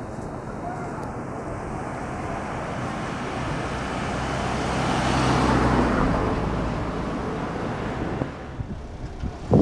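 Road traffic: a car passing close by, its noise swelling to a peak about halfway through and then fading, over a steady low hum.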